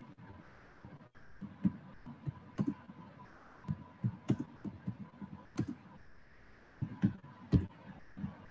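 Irregular light taps and clicks, about a dozen spread unevenly over several seconds, some with a low thump, over a faint steady tone.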